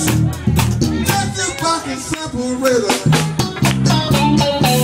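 Live band music with a steady drum-kit beat, a bass line and electric guitar, with a melody line over it.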